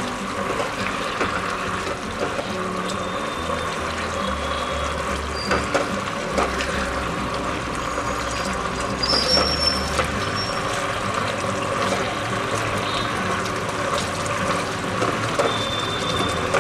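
Thick chili gravy bubbling and sizzling in a non-stick frying pan as fried paneer cubes are stirred through it with a silicone spatula. The spatula gives a few sharp scrapes and taps against the pan.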